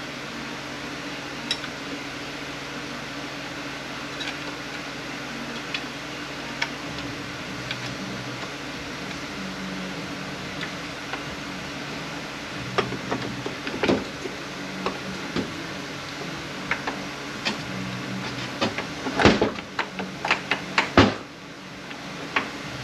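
Scattered light clicks and clinks of hand tools and metal parts during teardown of an automatic transmission, with a cluster of louder knocks near the end, over a steady background hum.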